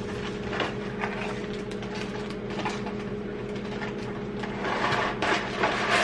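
Microwave oven running with a steady electrical hum, with a few small clicks and a rustle of handling near the end.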